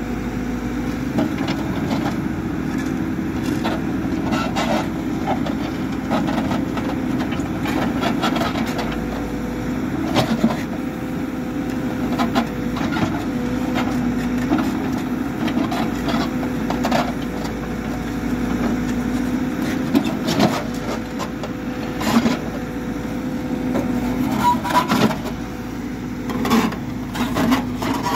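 Hidromek backhoe loader's diesel engine running steadily while the machine works, with frequent short knocks and clanks.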